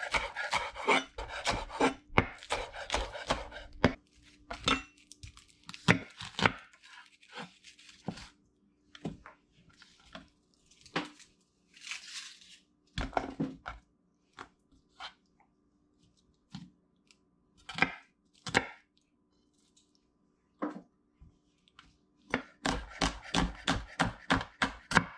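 A chef's knife chopping scallions and then an onion on a bamboo cutting board, the blade knocking on the wood. There is a quick run of chops at the start and another near the end, with scattered single cuts in between.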